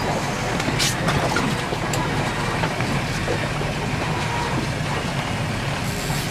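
Boat engine running steadily at slow trolling speed, under an even rush of wind and water, with one sharp click about a second in.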